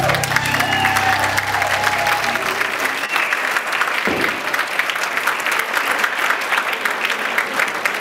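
Audience applauding and cheering as the dance track ends. The music's bass fades out over the first three seconds, leaving dense clapping with a couple of high whoops near the start.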